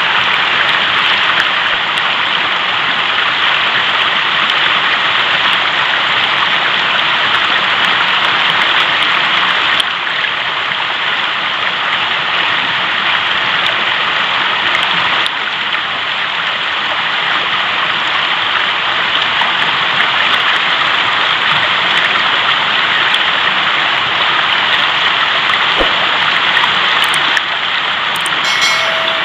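Fast-flowing mountain river rushing, a steady loud wash of water noise, dipping slightly in level about ten and fifteen seconds in.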